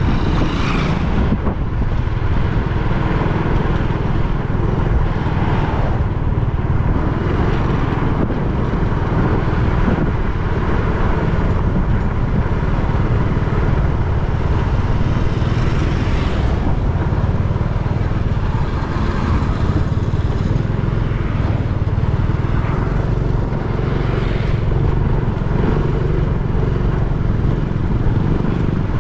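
Honda XRM 125's single-cylinder four-stroke engine running at a steady cruising speed, under a heavy, even rush of wind on the microphone and road rumble.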